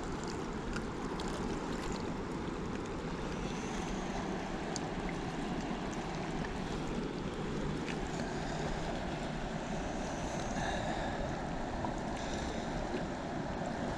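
Steady rushing noise of moving water and wind on the microphone.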